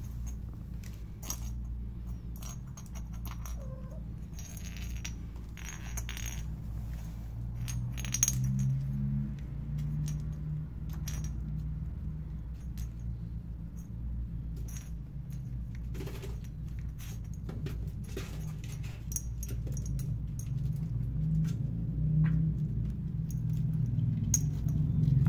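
Scattered light clicks and clatters of a small plastic cat toy with dangling plastic rings, batted and pushed around by playing kittens on a hard floor and rug. A steady low rumble sits underneath and grows louder near the end.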